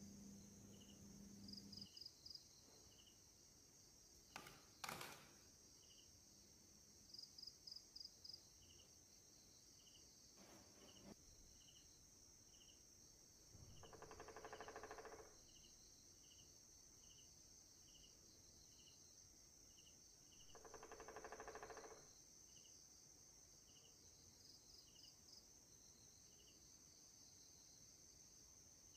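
Near silence: faint insects chirping at an even pace, about one or two chirps a second, over a steady high drone. Two soft hums of about a second and a half each, and a couple of light knocks, are the loudest things.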